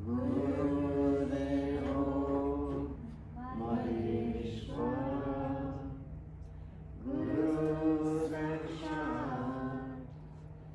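A group chanting a Vedic prayer in unison, in three long, sustained phrases with short breaks for breath between them.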